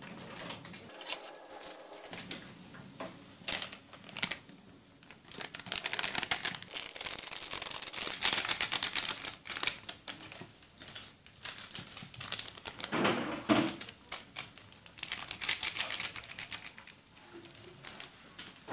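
Coconut milk with scrambled egg simmering in a frying pan, its bubbles popping in a fast, irregular crackle that swells and fades, with a louder handling noise about thirteen seconds in.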